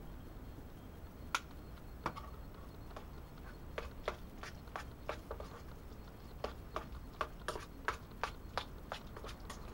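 A spoon clicking against the side of a cooking pot while beans and bacon are stirred. The sharp ticks are irregular: a few in the first seconds, then faster, about two or three a second.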